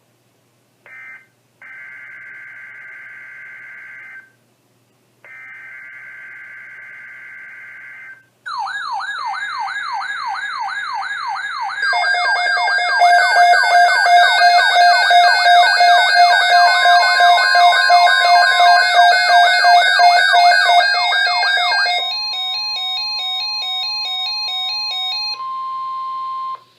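Emergency Alert System signals: first three short bursts of raspy SAME header data, then about 8 s in a rapid wailing siren-like sweep. About 12 s in this is joined by loud steady and beeping alarm tones, which give way about 22 s in to a simpler beeping pattern and, near the end, a single steady Weather Radio alert tone.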